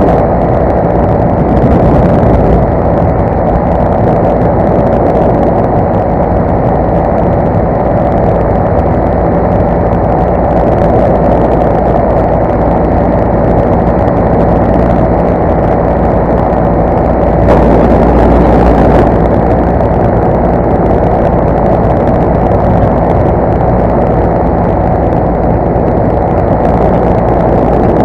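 Parajet Zenith paramotor's two-stroke engine and propeller running steadily in cruise flight, a loud drone with wind on the microphone. The sound swells briefly about two-thirds of the way in.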